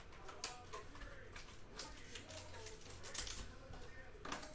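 Light handling sounds of a cardboard trading-card box and foil-wrapped card packs: a few short taps, scrapes and crinkles as the inner tray slides out and the packs are set down.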